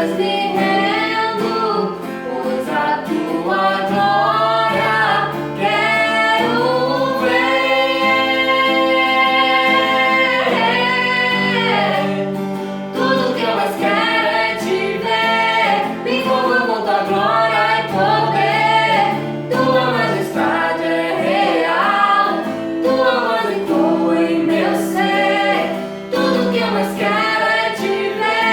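A woman singing a worship song with acoustic guitar accompaniment, including one long held note about a third of the way in.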